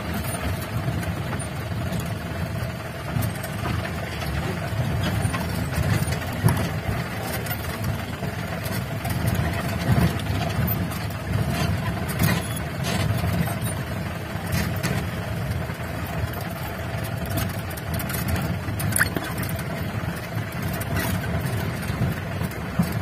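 Mahindra jeep's engine running steadily as the jeep drives over a rough dirt track, heard from inside the vehicle, with a few short knocks and rattles from the bumps.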